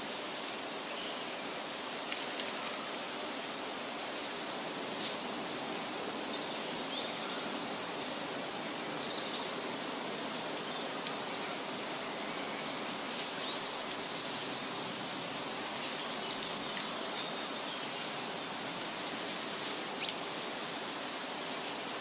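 Steady rushing outdoor hiss with scattered short, high bird chirps.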